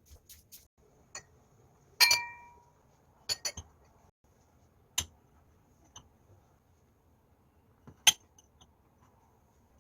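Dishes and cutlery clinking as they are handled and set down: a handful of separate knocks, the loudest about two seconds in ringing briefly with a clear tone, another sharp one near the end.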